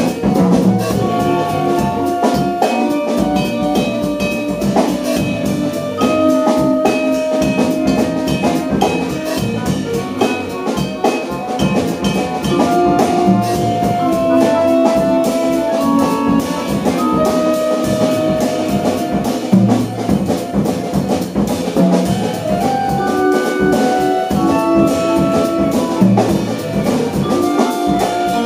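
Jazz quintet playing live: a clarinet line over accordion, upright bass, vibraphone and drum kit.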